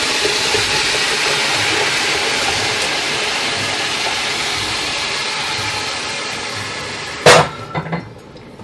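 Chicken broth poured from a glass jug onto freekeh toasted in hot oil in a stainless steel pot, a steady sizzling hiss that slowly fades. A single sharp knock comes near the end, followed by a couple of light clicks.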